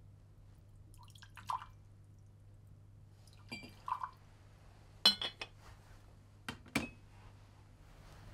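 Cut-glass crystal decanter and tumblers clinking as whisky is poured, with a short splash of liquid. There is a sharp glassy clink at about five seconds, and two knocks just before seven seconds, as glass is set down on a metal tray.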